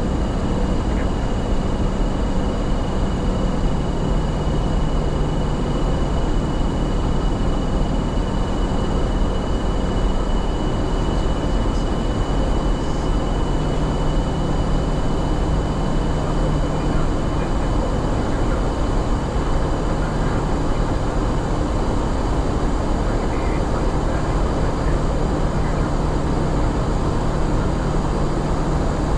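Airbus A350-900 flight deck in flight: a steady rush of airflow noise with a constant low hum and a faint, thin high tone, unchanging throughout.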